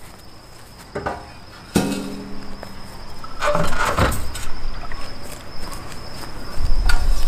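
Metal carrier ramp knocking and clanking as a dirt bike's rear tire is shifted into the ramp channel: a knock about a second in, a ringing metal clank just after, then scraping and a low thud around four seconds in. Crickets trill steadily in the background.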